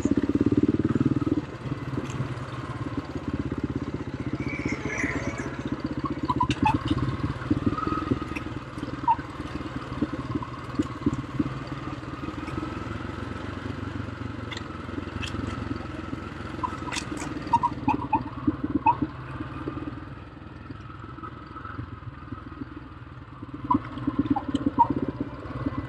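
Quad (ATV) engine running at trail speed over rough ground, with scattered clattering knocks. The engine is louder at first, eases off, and picks up again near the end.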